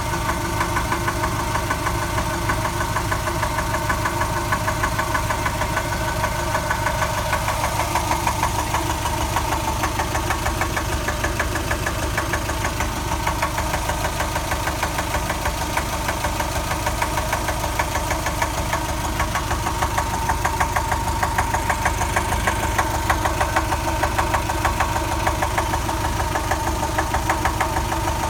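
Subaru 2.5 flat-four engine idling with a steady, rapid knock. The owner hears it only once the engine is warm, at idle, from the driver's side, and it goes away on acceleration; its cause is unknown to him.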